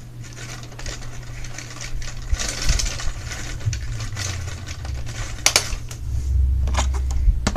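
Toy crane's winch winding its hook up, a steady mechanical rattle with a few clicks.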